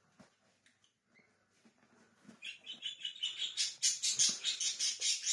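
Plastic cable tie being pulled tight through its ratchet: a fast run of sharp clicks that starts about two seconds in and grows louder.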